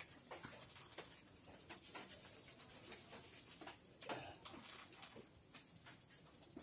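Faint scratching and rustling of a dog and a kitten tussling on a sack, with small scattered clicks and a slightly louder scuffle about four seconds in.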